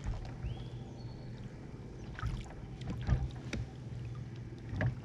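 Handling noise on a fishing kayak: a few scattered knocks and bumps as the paddle and rod are moved against the hull, the loudest about three seconds in, over a steady low hum.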